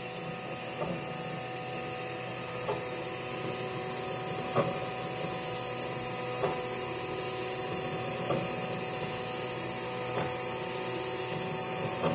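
Monoprice MP Cadet 3D printer printing: its stepper motors whine steadily on several tones, with a sharp click about every two seconds.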